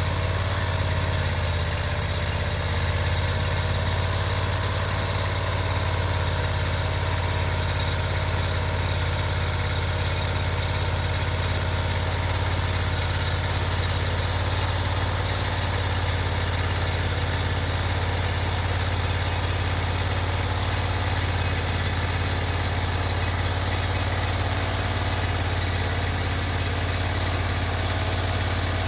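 An engine idling steadily, with an even, unchanging hum throughout.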